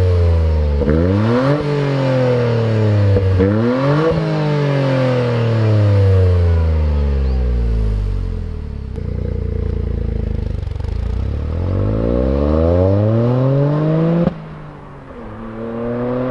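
Toyota GR Yaris's turbocharged 1.6-litre three-cylinder engine, heard through an HKS Super Turbo Muffler exhaust, revved with the car standing: a few quick blips climb and drop back, the revs sink slowly and settle for a moment, then climb in one long steady rise. Near the end it cuts suddenly to a quieter, rising engine note from the car farther off.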